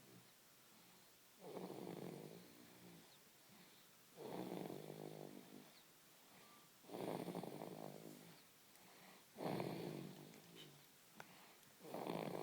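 Slow, rhythmic snoring of a sleeper, five snores about every two and a half seconds, each starting abruptly and fading away over about a second.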